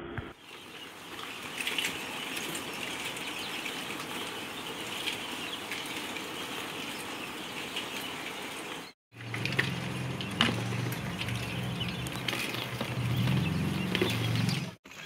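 A crowd of day-old quail chicks peeping and rustling as they are handled and moved from the hatching tray into a plastic basin. From about nine seconds in, a low steady hum runs underneath.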